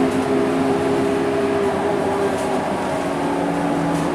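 Scania K230UB city bus's rear-mounted diesel engine and drivetrain running under way, heard from inside the passenger cabin. A steady drone carries a few held whining tones that shift slightly in pitch over road and cabin noise.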